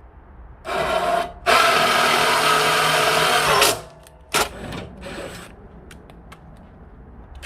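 Power drill running in short bursts while boring a hole: a brief spin, then a steady run of about two seconds, then another short spin.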